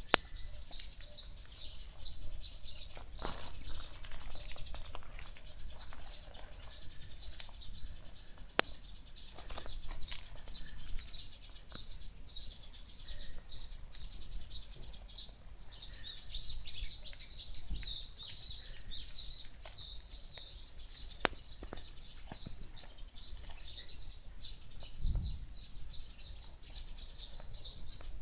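Small birds chirping and twittering in a dense, rapid, continuous chorus, livelier for a few seconds past the middle, with a few scattered soft clicks and knocks.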